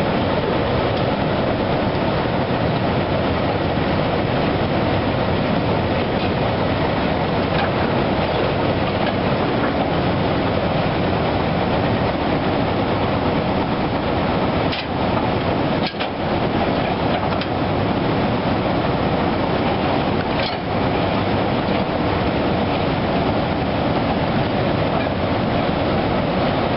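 Loaded mine supply flatcars rolling along the rails, a steady rail rumble with some clatter, with brief breaks a little past the middle.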